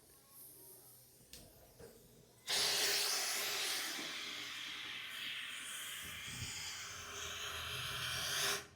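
Air hissing steadily through a homemade balloon-and-pipe horn without yet sounding a tone. The hiss starts suddenly about two and a half seconds in after near silence and eases slightly in level.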